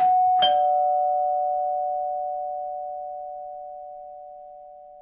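Doorbell chime: a single ding-dong, two notes about half a second apart, ringing on and fading slowly. It announces a visitor at the door.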